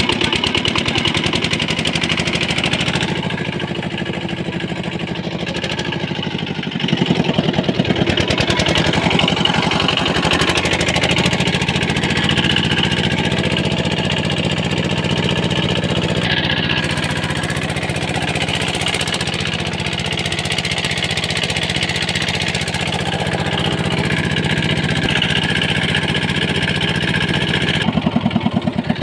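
A boat's diesel engine running steadily with a fast, even beat. It gets a little louder about seven seconds in and again near the end.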